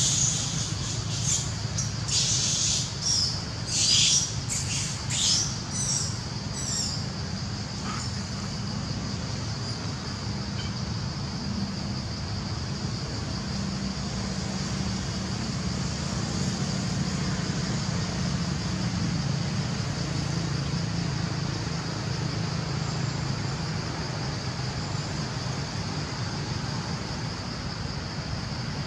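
Forest ambience: a steady high insect drone, with a run of short, high chirping calls over the first seven seconds or so and a low steady rumble underneath.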